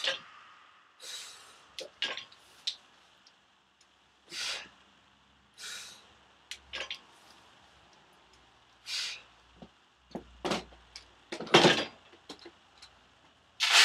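A weightlifter's forceful breaths during heavy barbell back squats: about five short, loud, hissing blasts of breath spaced a few seconds apart, with a few light clicks between them. Near the end comes the loudest breath, then a sharp knock as the loaded barbell is set down on the wooden rack.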